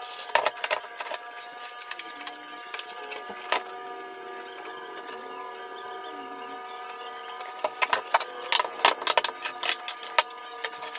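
Hand tools clinking and knocking as they are handled and set down, a few strikes right at the start and a quick run of them near the end, over a steady background hum.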